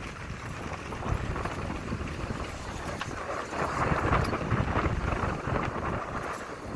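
A vehicle driving along a street, with wind buffeting the microphone over the engine and road noise.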